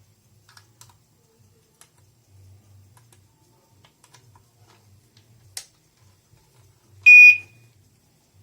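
A single short, high-pitched beep from the alarm system's main control panel buzzer near the end, preceded by a faint click about a second and a half earlier.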